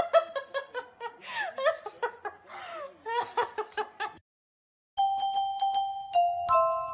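A woman laughing and giggling with high squeals. After a short silence, about five seconds in, a slow chiming glockenspiel-like melody starts.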